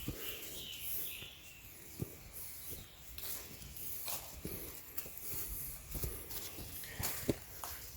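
Footsteps climbing over a forest floor, irregular crunches and snaps of leaves and sticks underfoot.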